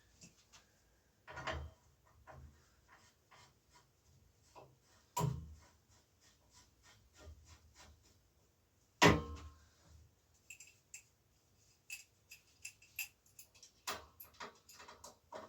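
Metal hand tools clicking and knocking on a bicycle's crankset as the cranks are worked off: a few harder knocks, the loudest about nine seconds in, then a run of quick light ticks over the last five seconds.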